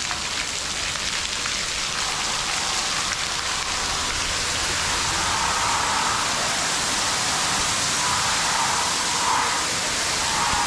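Fine water spray falling from the ceiling of a stone grotto shower tunnel onto the pebble floor, a steady rain-like hiss.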